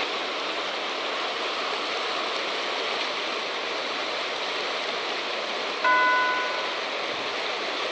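River water rushing steadily through a shallow weir and around concrete wave-breaker blocks. A brief clear tone rings once, about six seconds in, the loudest sound.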